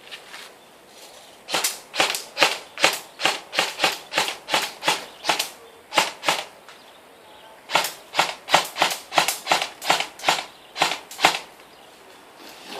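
Airsoft guns firing in quick strings of single sharp shots, about three to four a second. There are two strings, with a pause of about a second between them.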